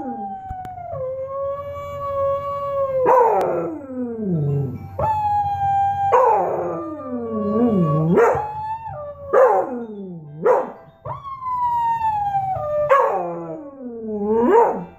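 Beagles howling, partly from a beagle-howling video played over speakers, with the beagle in the room howling along. A new howl comes about every two to three seconds: some are long, drawn-out notes held at one pitch, others slide steeply down, and at times two howls overlap.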